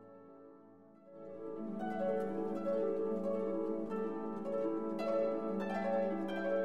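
Intro music: a plucked-string melody with a harp-like sound, coming in about a second in and carrying on as a run of quickly changing notes.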